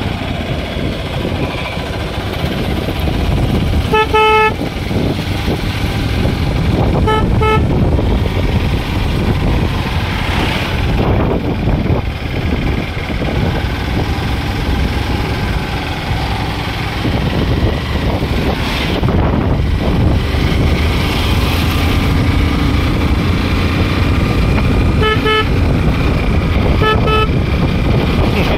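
Riding on a motorcycle: a steady rush of wind and engine noise, with short horn honks: one about four seconds in, a double beep a few seconds later, and a few more quick beeps near the end.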